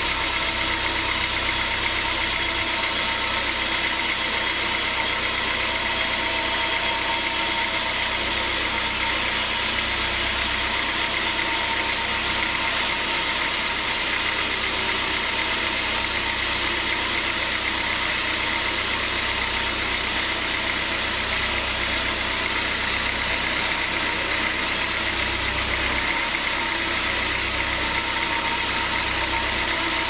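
Large log band sawmill running steadily: a constant machine drone with a steady high whine from the motor and the running band blade.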